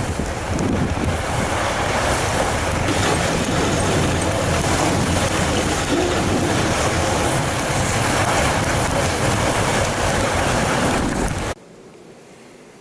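Steady rushing wind noise on the microphone while riding a fat bike, cutting off suddenly about a second before the end.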